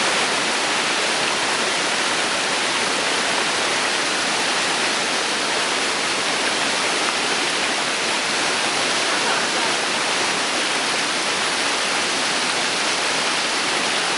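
Dudhsagar Falls, a large waterfall, giving a steady, loud rush of falling water, an even hiss that holds without a break.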